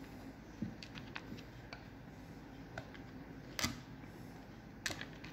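Small clicks and taps of fingers handling a Milwaukee M18 drill's plastic housing as loosened screws are picked out, with two sharper clicks in the second half.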